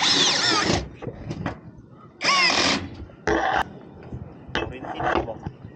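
Cordless drill-driver running in three short bursts, the first two with a motor whine that swoops in pitch as it spins up and slows, with small clicks and knocks between.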